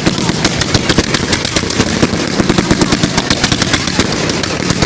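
Fireworks going off in a fast, unbroken run of sharp bangs, many a second.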